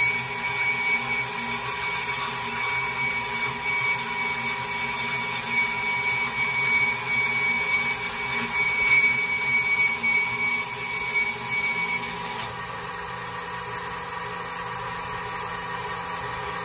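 Automatic horizontal bandsaw running, a steady machine noise with a thin high whine. About twelve seconds in the whine stops and the sound drops to a quieter steady hum.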